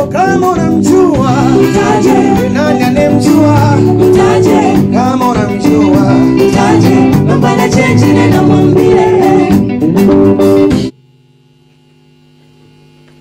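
Live band music with a male lead singer and backing singers over keyboard, guitar and a steady beat. It cuts off suddenly about eleven seconds in, leaving only a steady electrical hum.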